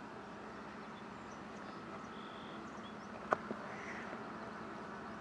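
Open-air river ambience: a steady low hum with a few faint, short bird chirps, and one sharp click a little past three seconds in.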